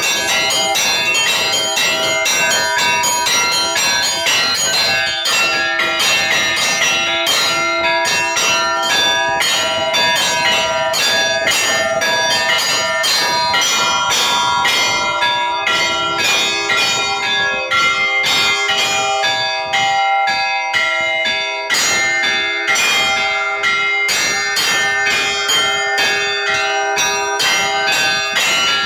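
Orthodox church bells rung together in a traditional zvon: several bells of different pitch struck in quick succession, many strikes a second, their tones ringing on and overlapping.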